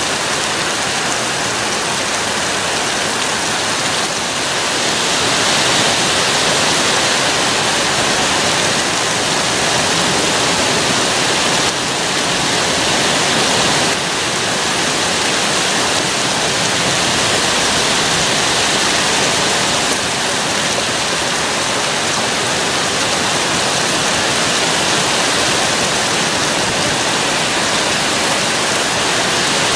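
Heavy thunderstorm rain pouring steadily: a dense, even hiss with no thunderclaps.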